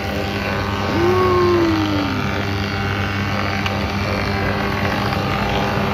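Wadkin four-sided planer-moulder running steadily, its electric motors giving a continuous hum. A short falling tone sounds about a second in.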